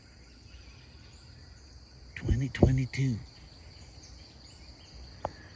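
Steady high-pitched chorus of insects in the forest, with a man's voice saying a few words about two seconds in, and a faint click near the end.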